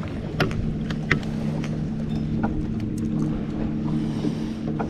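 A boat motor hums steadily, with scattered light clicks and ticks over it.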